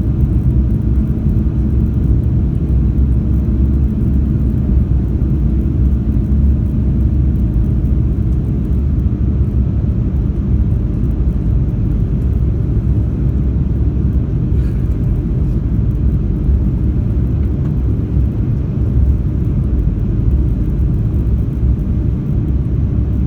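Cathay Pacific Airbus A330-300's Rolls-Royce Trent 700 jet engines giving a steady, deep rumble after takeoff.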